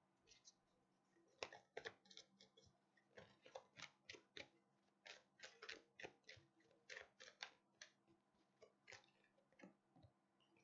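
Faint, irregular soft clicks and taps of tarot cards being handled and shuffled as a card is pulled from the deck.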